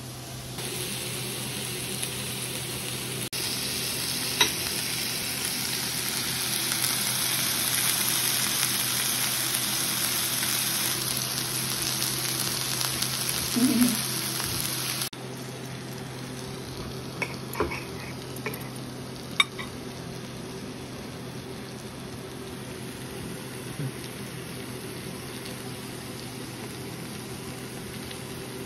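Lamb chops sizzling in hot fat in a cast-iron skillet, a steady hiss that is louder for about the first half and drops to a quieter sizzle after a cut near the middle. A few light clinks of cutlery come a little after the drop.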